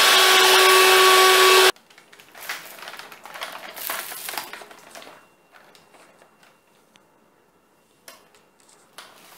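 SilverCrest cordless stick vacuum cleaner running on carpet with a steady motor whine, powered by the replacement model-making battery fitted in the repair. The motor cuts off abruptly a little under two seconds in. Then come plastic handling rustles and a few light clicks.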